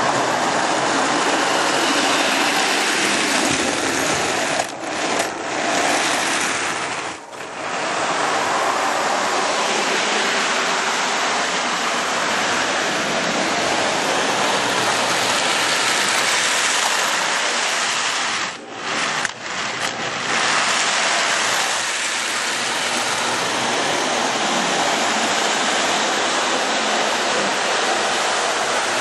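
Marx 1666 toy steam locomotive running on FasTrack: a steady mechanical whir and rattle of its motor, gears and wheels on the plastic-based track, dipping briefly a few times, around 5 and 7 seconds in and again around 19 seconds.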